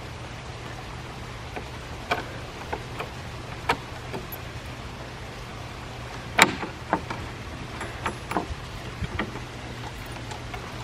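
Scattered metallic clicks and clinks of a padlock, its key and a steel gate bolt latch being handled, the sharpest a single clack about six and a half seconds in. A steady low hum runs underneath.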